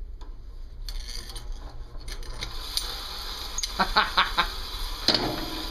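Small brushed electric motor from a 1960s palm massager running while fine wire is force-fed into it and chewed up in its fan: a steady hiss with irregular crackles and clicks, and a sharp crack about five seconds in.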